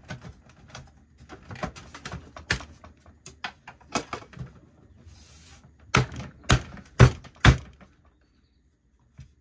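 Plastic clicks and knocks as the battery compartment and front panel of an APC Back-UPS 1400 are handled and fitted back together, with a brief scraping rub, then four loud knocks about half a second apart.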